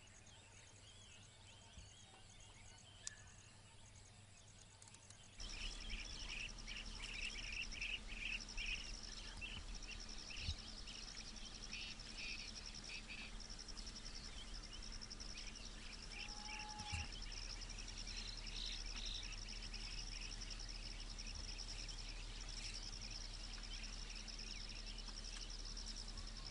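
Outdoor insect and bird ambience: faint at first, then suddenly louder about five seconds in, with a continuous high insect trill and scattered bird chirps over a low steady hum.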